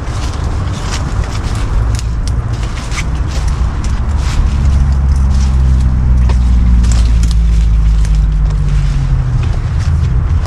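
Road traffic rumbling past, with a heavy vehicle's engine growing louder about four seconds in and fading near the end. Scattered light ticks and crunches of footsteps and brush run over it.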